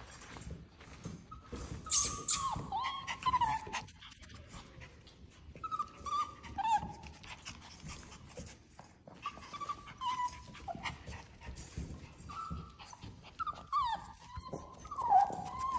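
Teddy bear puppies at play, giving short high whines and yips that fall in pitch, in bursts of several calls every few seconds.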